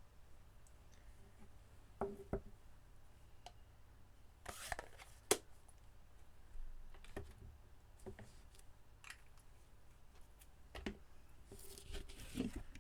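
Paper and cardstock being handled with small craft tools: scattered taps and clicks with short papery rustles, the sharpest click about five seconds in.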